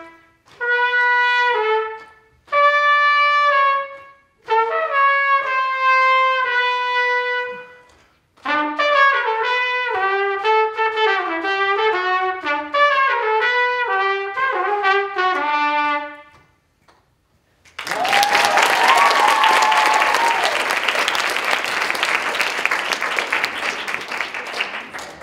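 Unaccompanied solo trumpet: a few held notes with breaths between them, then a quicker run of notes, stopping about two thirds of the way through. After a short pause the audience breaks into applause and cheering, with a whoop at its start.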